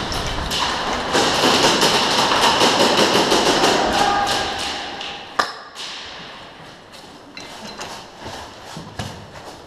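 Airsoft skirmish: rapid clicks and knocks from airsoft guns firing and players running in their gear, busiest for the first five seconds, with a single sharp knock about five and a half seconds in, then fewer, quieter clicks.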